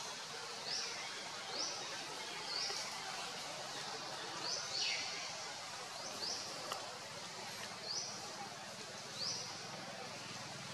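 A bird calling: short, high, sloping chirps roughly once a second, over a steady hiss of forest ambience.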